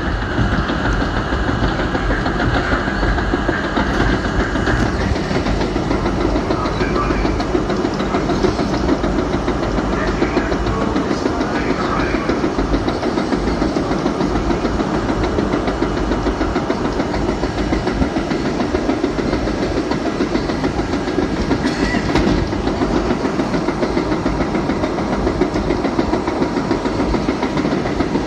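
R32 subway train running at speed along the track, heard from inside the car: a steady rumble of wheels on rails.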